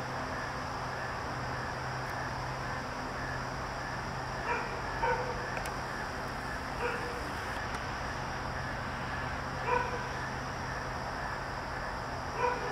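A dog barking about five times, single short barks spaced unevenly a second or more apart, over a steady background hum and hiss.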